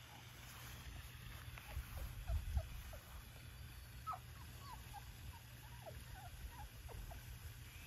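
Four-week-old Labrador retriever puppies giving many short, faint squeaks and whimpers, mostly from about a second and a half in, over a low rumble that is loudest about two and a half seconds in.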